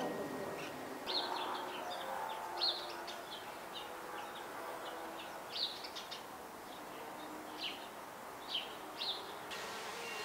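Birds chirping: short, high calls in small clusters every second or few seconds over a faint steady background.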